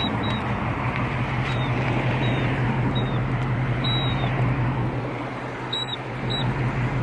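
Short, high chirps at uneven intervals, one slightly longer and falling about four seconds in, over steady street traffic noise with a constant low hum.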